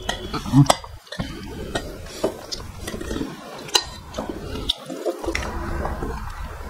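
Metal spoon stirring and scooping fish curry in an aluminium pot, with wet liquid sounds and sharp clicks and clinks of the spoon against the metal.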